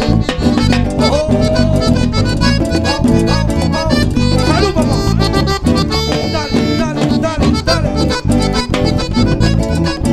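Live cumbia band playing an instrumental passage: a melody line over a steady, driving beat of drums and bass.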